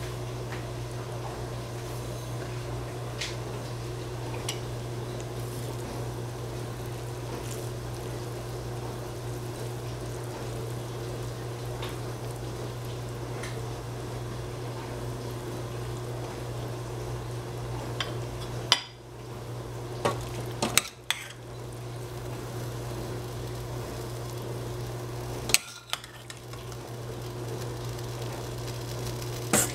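A steady low kitchen hum, then in the last third a metal ladle clinks sharply a few times against a stainless steel saucepan and a ceramic bowl as the vegetables are dished out.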